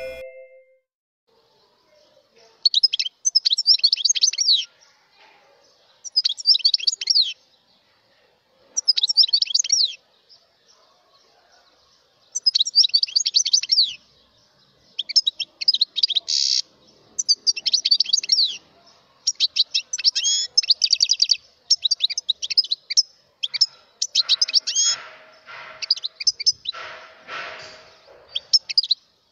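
European goldfinch singing: bursts of rapid, high twittering song, each a second or two long, repeated about a dozen times with short pauses that grow shorter toward the end.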